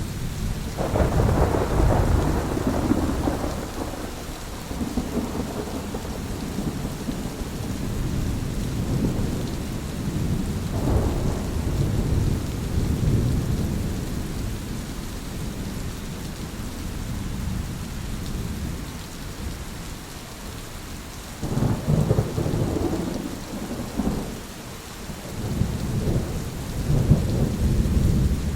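Thunderstorm: steady rain with rolling thunder. The rumbles swell and fade, with a long peal about a second in, another around eleven seconds, and several sharper cracks and rumbles near the end.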